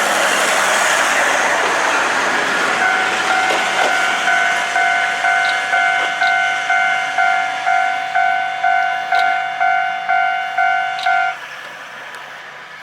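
A Japanese level-crossing alarm rings in a steady pulse about twice a second. For the first couple of seconds it is drowned out by the loud rush of a KiHa 200 series diesel railcar going by. The alarm then cuts off suddenly about eleven seconds in.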